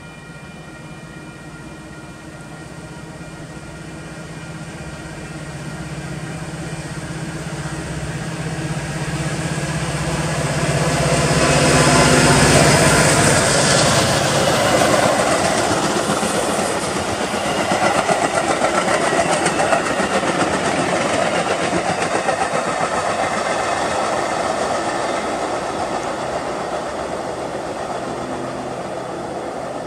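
Metra commuter train led by an EMD F40PH diesel locomotive with a 16-cylinder two-stroke engine. The engine grows steadily louder as the train approaches and is loudest about twelve seconds in as it passes close by. The bilevel passenger cars then rumble past, wheels clicking over the rail joints, and the sound fades as the train moves away.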